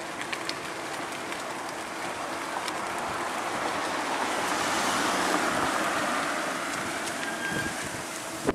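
Rushing wind and road noise while riding a bicycle on a concrete lane, swelling slowly to its loudest about five seconds in and then easing off.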